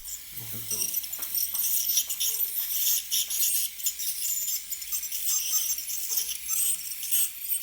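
A dental scaler scraping tartar off a dog's teeth: faint, irregular high scratching with small clicks.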